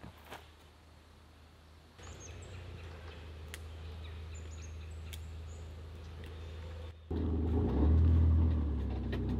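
A few faint bird chirps over a steady low hum. About seven seconds in, a much louder, uneven low rumble cuts in abruptly.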